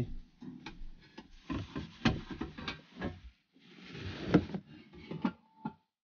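Handling noise of hands working at an enamel baking tray and a brass fuel-line fitting on a wooden counter: irregular light knocks, scrapes and clicks, with a short rustle that ends in a sharp click about four seconds in.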